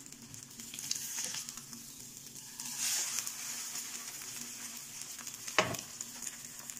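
Two eggs frying in oil in a frying pan, a steady sizzle, with a slotted spatula scraping and turning them in the pan. There is one short sharp scrape or knock about five and a half seconds in.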